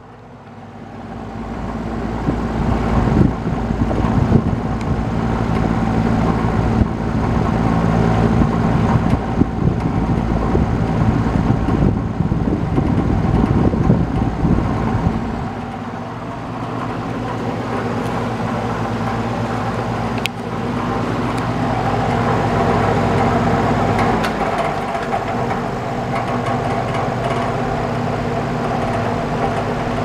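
Old Eskimo box fan running: the motor hum and blade whoosh build up over the first few seconds, then run steadily, with the sound shifting in level and tone about halfway through and again later.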